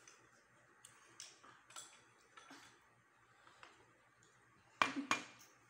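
Light clicks and taps of chopsticks and crockery during a meal at a table, then two sharp knocks of dishes near the end.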